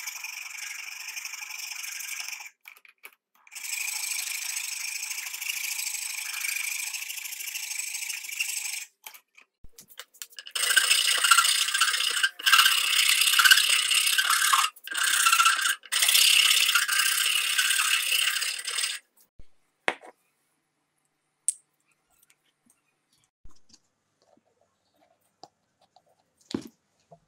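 Metal hand file rasping across a wooden knife handle in long runs of strokes with brief pauses, loudest from about ten seconds in. The filing stops about two-thirds of the way through, and only a few light clicks follow.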